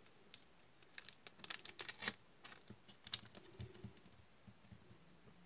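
Clear adhesive tape being handled and pressed down onto a tabletop with the fingertips to hold a doubled macrame cord in place: a string of light, irregular clicks and crackles, busiest in the first half.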